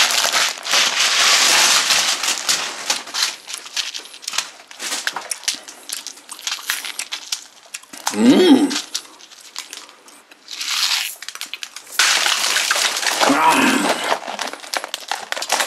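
Crinkly plastic candy packaging crackling as hands handle and unwrap it: dense crinkling at the start and again near the end, with scattered small crackles in between.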